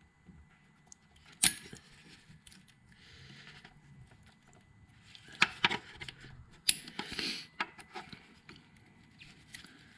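Clicks and small rattles of a fuel line quick-connect fitting and its release clip being worked by hand, with a sharp click about one and a half seconds in and a cluster of clicks between about five and seven and a half seconds.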